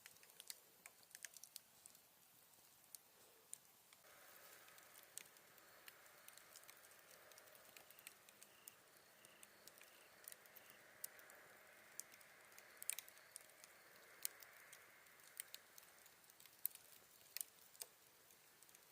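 Campfire of burning wood crackling faintly: sparse, irregular sharp pops and snaps, with a soft hiss from the fire coming in about four seconds in.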